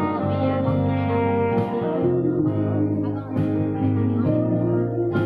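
Live band music: a woman singing into a microphone over an amplified band backing with a trumpet, held notes over a steady bass line.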